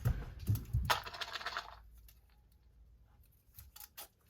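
Glass mason jars of sterilized popcorn being handled and set down: a few dull knocks in the first second, a short rattle about a second in, then light clicks.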